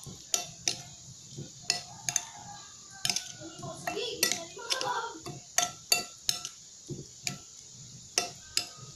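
Metal spoon stirring a sauce in a glass bowl, clinking against the glass in sharp, irregular taps, about one to three a second.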